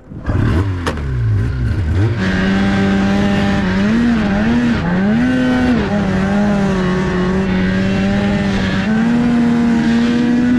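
2003 Polaris RMK 700 snowmobile's two-stroke twin engine pulling away under throttle. The revs climb unevenly for the first couple of seconds, then it runs at a steady high pitch with a few brief dips around the middle, rising a little near the end.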